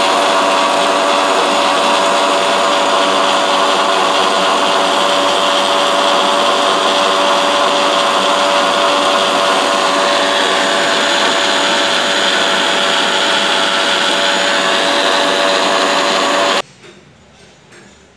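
Preethi mixer grinder running, its steel jar blending pomegranate seeds with milk and sugar: a loud, steady motor whine that cuts off suddenly a couple of seconds before the end.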